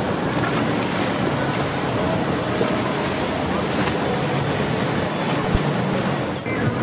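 Steady waterfront noise: wind and moving water, with a low engine hum from boats underneath.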